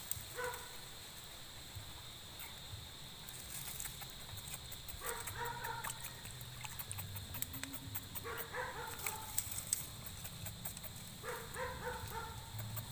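An animal calling four times, about three seconds apart, each call a short broken run of pitched notes, with sharp clicks and crackles in the middle.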